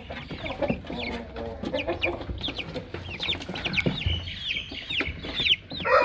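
Light Columbian Brahma chickens: many short, high-pitched chick peeps, coming thicker toward the end, over a few lower clucks.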